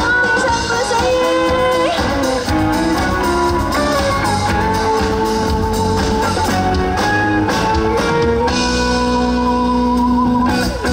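Band music without vocals: an instrumental passage with a held, sliding lead melody over guitar and drums.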